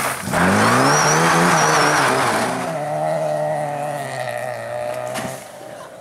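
Rally car engine at full throttle on a gravel slalom stage, pitch climbing hard, then dropping back and holding at high revs. About five seconds in, the engine note cuts off abruptly with a sharp knock.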